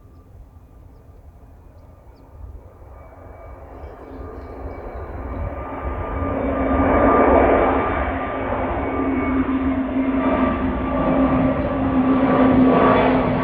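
Jet airliner engines growing steadily louder as the plane approaches, a broad roar with steady whining tones over it.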